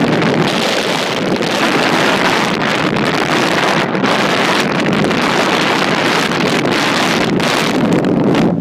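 Loud, steady wind buffeting the microphone at the open window of a moving 4x4, with the vehicle's running noise underneath.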